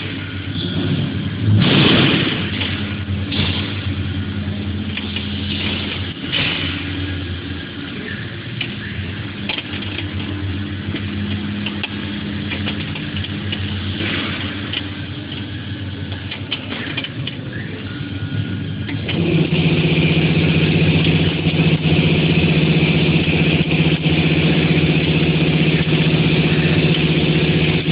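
Workshop machinery humming steadily, with scattered clicks and knocks of metal tools and parts being handled; about two-thirds of the way through a louder machine hum starts up and runs on steadily.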